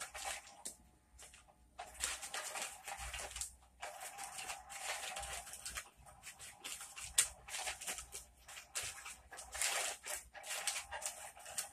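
Rustling and scratching of a round fabric cat-toy cover in irregular bursts, as the toy's wand moves beneath the cloth and cats paw at it.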